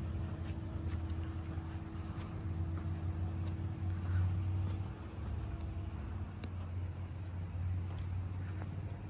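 A motor running with a steady low drone and a constant higher hum, with faint scattered clicks over it.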